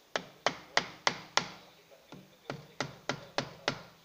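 Quick sharp taps on metal, about three a second, in two runs of five and six with a short pause between; each tap rings briefly.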